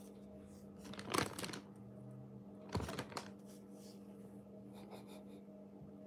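Thin plastic bag crinkling and rustling as a cat shifts inside it, in a few short bursts, the loudest about a second in and two more around three seconds in.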